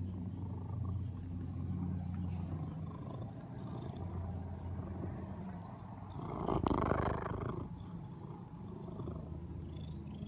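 Domestic cat purring steadily right at the microphone, a continuous low rumble. A brief louder rustle comes about two-thirds of the way through.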